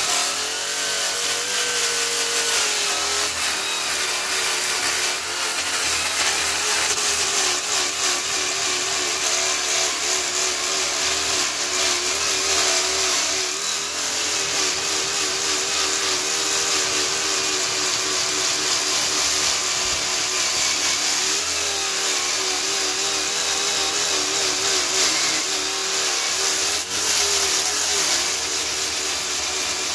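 Handheld electric grinder spinning a Velcro-backed sanding disc against jujube wood. The motor whine wavers up and down in pitch as the disc is worked over the slab's rough live edge.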